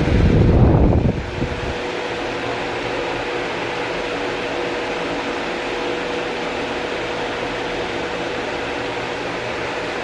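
Small ceiling fan running steadily: an even whoosh of moving air with a steady hum from its motor. A louder low rumble sounds for the first second or so, then settles.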